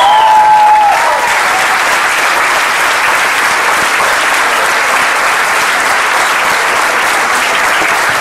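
A large seated audience applauding steadily, with a held cheer rising above the clapping during the first second.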